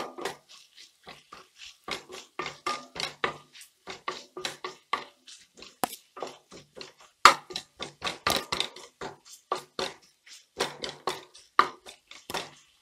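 Wooden spatula stirring sliced onions in a black wok, scraping and knocking against the pan in quick, irregular strokes, a few per second.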